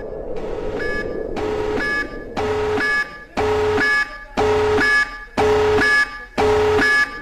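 Electronic emergency-alert alarm tone. A noisy swell builds over about the first second, then loud buzzy beeps made of several tones together repeat about once a second.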